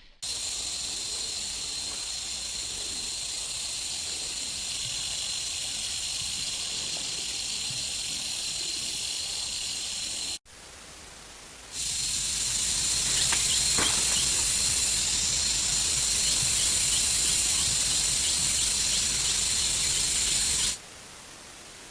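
Steady, high-pitched insect chorus. It cuts off about halfway, then returns louder a second or so later and stops shortly before the end.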